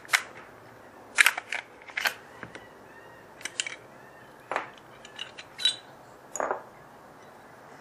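Glock 19 pistol being taken apart by hand: a series of sharp metallic clicks and clacks from its slide and parts, about a dozen at irregular intervals.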